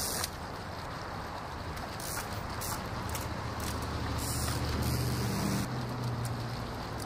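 A road vehicle's engine hums low and steady. It builds from about three seconds in and drops away suddenly a little before the end, over a steady outdoor hiss.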